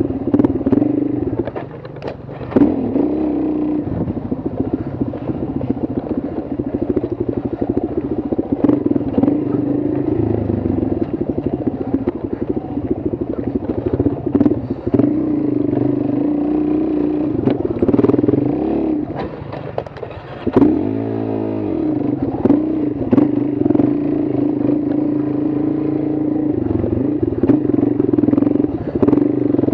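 An engine running steadily, with scattered clicks and clatter; about two-thirds of the way through it quietens and its pitch dips and rises again.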